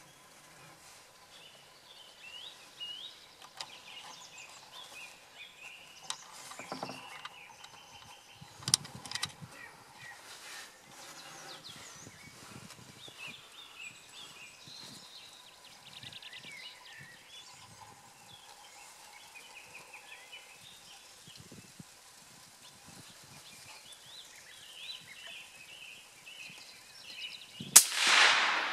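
Songbirds chirping faintly over a quiet rural background, with a sharp click about nine seconds in. Near the end, a single hunting-rifle shot, loud and sharp, with an echoing tail that dies away over about a second.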